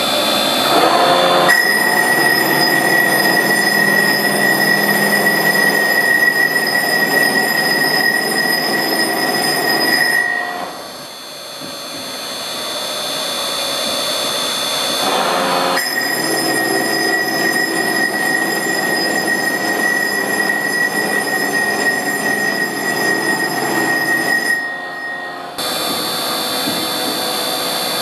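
Bridge saw spindle driving a Lupato Drago rolling-finish head, its 2,000-grit abrasive roller running on wet marble: a steady high-pitched whine over a hiss. The sound shifts abruptly a few times, turning quieter and duller for several seconds about a third of the way in.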